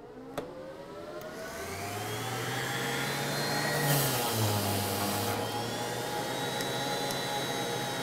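Dust-collection vacuum motor starting up, its whine rising in pitch over about two seconds and then running steadily, with a random orbit sander running on wood and hissing as it sands.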